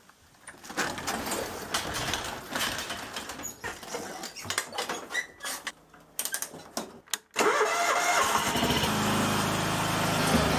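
John Deere riding lawn tractor's engine starting suddenly a little over seven seconds in and then running steadily. Before it come scattered quieter clicks and knocks.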